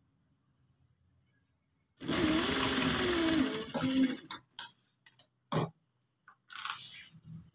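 Sewing machine running a short burst of stitching on a chiffon sleeve seam, starting about two seconds in and lasting about a second and a half, its motor hum wavering in pitch. It is followed by a few sharp clicks and a brief burst of noise near the end.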